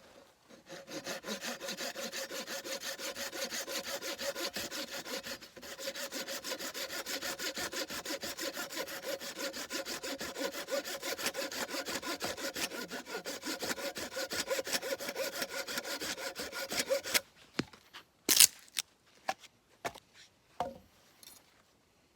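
Hand saw cutting through wood in fast, even back-and-forth strokes, with a short pause about five seconds in. The sawing stops about three quarters of the way through, and a few sharp knocks follow.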